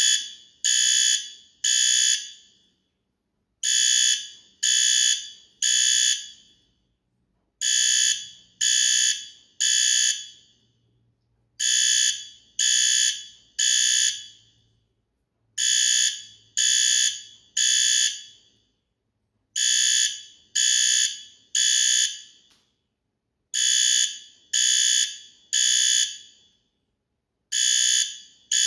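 Fire alarm sounding the temporal-three evacuation pattern: three short blasts of about half a second each, then a pause, the group repeating about every four seconds.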